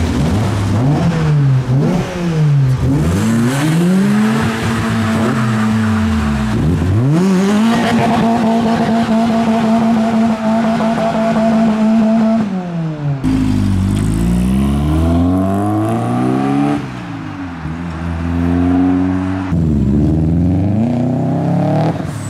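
A modified car's engine revved hard several times, then held at steady high revs for about five seconds. It then drops and pulls away, the pitch climbing and falling back at each upshift.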